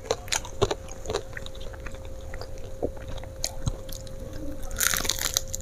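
Close-miked chewing and biting of crispy fried chicken, with small wet clicks, then a crunchy bite into the coating about five seconds in. A faint steady hum runs underneath.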